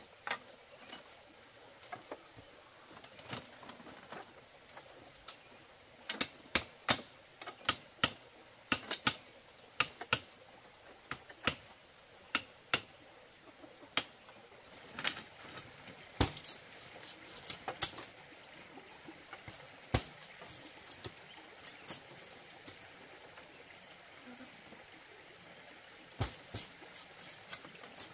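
Irregular sharp knocks and taps of hand tools on bamboo, at times coming in quick runs of two or three a second.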